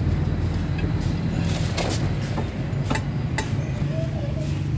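Several sharp metallic clicks of a hand tool knocking against the brake rotor and steering knuckle of a car's front wheel assembly, over a steady low mechanical hum.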